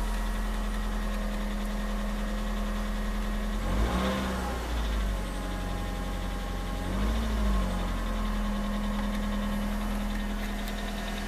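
Suzuki Swift Sport engine idling with a rattle (kata-kata) that the owner says comes only on a cold start and goes away above about 2000 rpm or once the engine warms. The engine speed changes briefly about four and seven seconds in.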